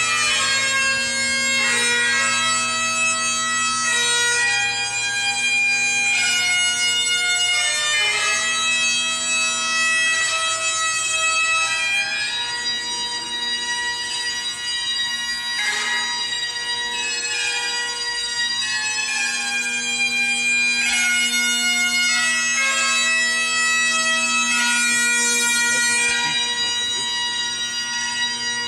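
Highland bagpipe playing a tune, the melody notes moving over its steady drones.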